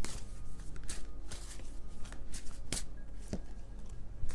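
A tarot deck shuffled by hand: a run of quick papery card flicks, thinning out toward the end, with one sharper snap a little after halfway.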